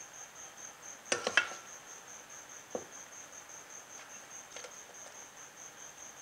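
A metal serving spoon clinks sharply against a stainless steel mixing bowl several times in quick succession about a second in, then taps once more near three seconds, while scooping dressed shrimp. Behind it a cricket chirps in a high, rapid, even pulse.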